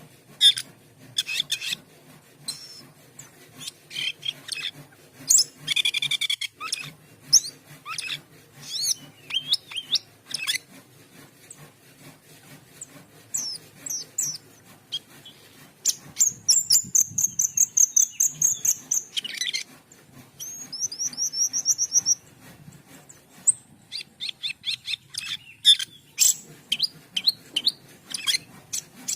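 Cucak keling (jalak keling) singing a varied, fast song of chirps, whistles and pitch sweeps, with a rapid high trill a little past the middle, a shorter trill after it, and quick clicky chatter near the end.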